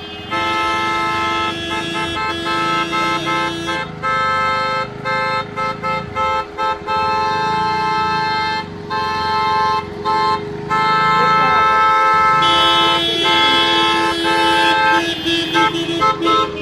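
Several car horns honking together in long held blasts, broken by short gaps.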